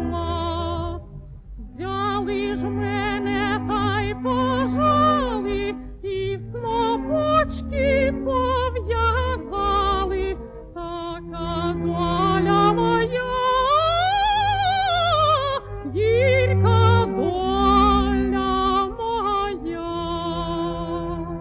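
A woman singing a song in an operatic style with wide vibrato, over instrumental accompaniment with sustained bass notes. About two-thirds of the way through, the voice rises to a high arching phrase and comes back down.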